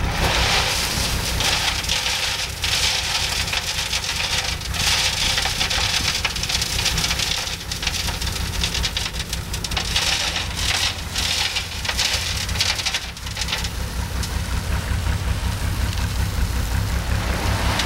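A dump truck tipping its load of gravel: a long rushing hiss of stone sliding out of the raised bed, swelling and easing in waves, over the steady rumble of the truck's engine.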